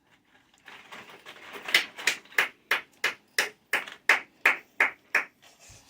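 Hands clapping in an even rhythm, about a dozen sharp claps at roughly three a second, after a moment of soft rustling.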